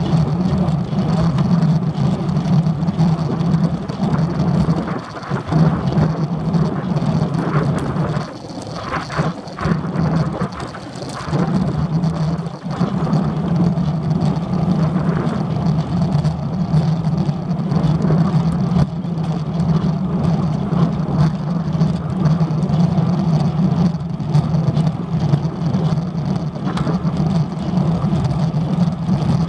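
Wind noise buffeting the microphone of a handlebar-mounted camera on a moving road bicycle, a steady loud rumble that eases briefly about eight seconds in.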